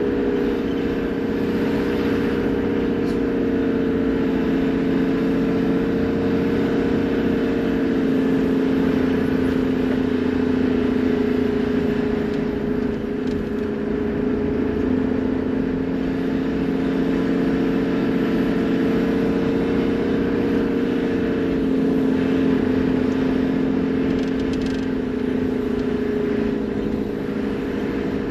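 Toyota Land Cruiser HZJ78 Troopy's 1HZ diesel engine running as it drives at a steady low speed, a constant drone that rises and falls only slightly.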